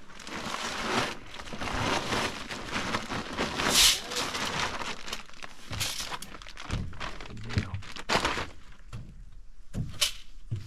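Irregular knocks, thunks and rustling of gear being handled close by, consistent with a trail camera being opened and fiddled with.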